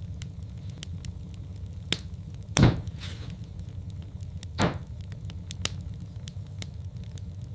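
Log fire crackling in a fireplace: scattered small pops and clicks over a low steady rumble of the flames. Two louder pops come near the middle, about two seconds apart.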